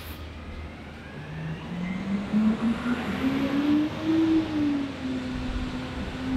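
A motor vehicle's engine running past, its pitch rising steadily for about three seconds as it speeds up, then easing off slightly and holding steady.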